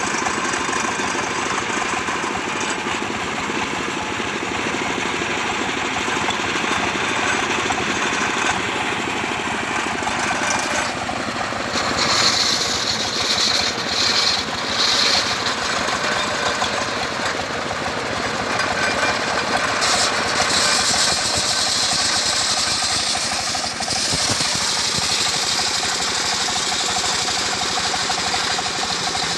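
Stationary diesel engine running steadily, driving a homemade circular sawmill blade. Twice, about 12 seconds in and again about 20 seconds in, a high hissing whine rises over the engine for a few seconds as the blade cuts through a mango log.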